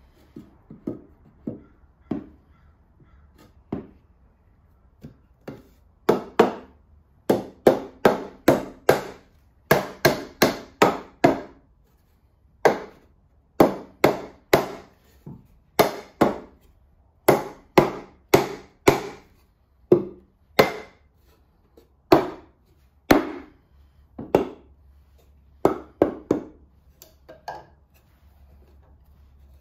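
Hammer blows on a 2x4 block, knocking it into place between the rails of a wooden workbench frame. Light taps at first, then dozens of sharp, hard blows in uneven runs, the wood ringing a little with each one.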